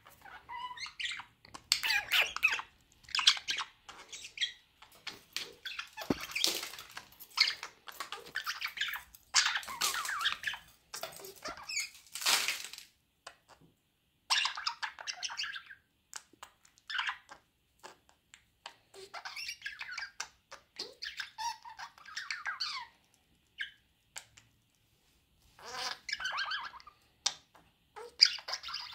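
Budgerigar chattering and warbling in bursts of a few seconds, with short pauses between.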